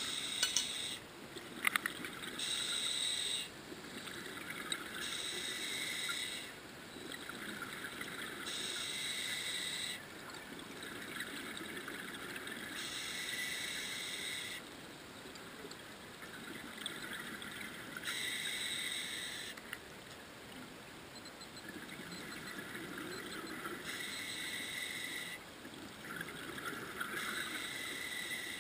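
Scuba diver breathing through a regulator underwater: a burst of exhaled bubbles about every four to five seconds, each lasting a second or two, with quieter stretches between for the inhale.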